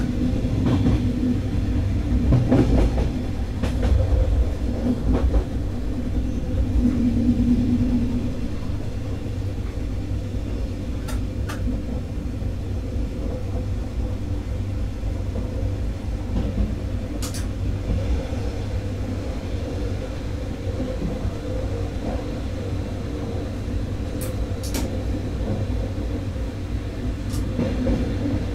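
Stadler GTW 2/6 diesel multiple unit running along the line, heard from the cab: a continuous low rumble of wheels on rails with a steady engine hum, a little louder for the first several seconds, and a few sharp clicks scattered through.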